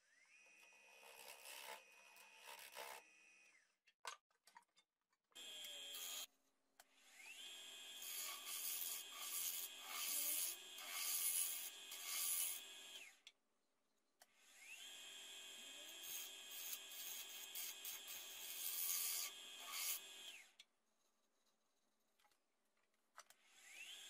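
A power tool's electric motor runs three times, its whine rising as it spins up and falling as it winds down each time, with loud rubbing of the tool against box elder wood over it.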